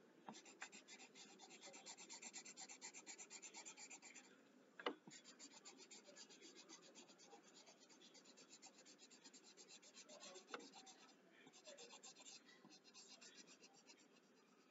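Pencil shading on paper: faint, quick, even back-and-forth strokes that pause twice, with a sharp tap about five seconds in.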